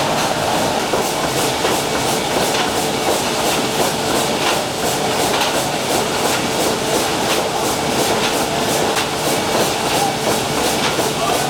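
A ship's 800 hp triple-expansion steam engine running, its cranks, connecting rods and valve gear making a steady, rhythmic clatter of several knocks a second.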